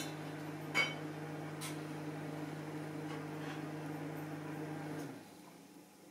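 A steady electrical machine hum that winds down with a falling pitch and stops about five seconds in. A sharp click comes just under a second in, and a fainter tick a little later.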